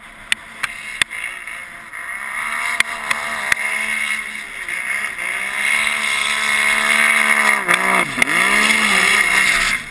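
Snowmobile engine at high revs, growing louder as a sled climbs the steep chute. A little past two-thirds of the way through, the revs dip sharply and climb again as it crests the top. A few sharp clicks in the first second.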